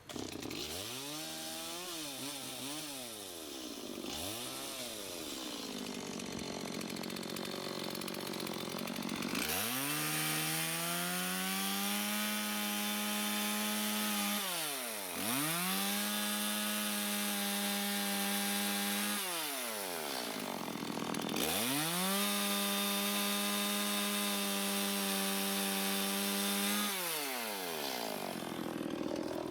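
Chainsaw limbing a felled eucalyptus blue gum. After a few short revs, the engine is held at full throttle three times for about five seconds each while cutting, and drops back to idle between cuts.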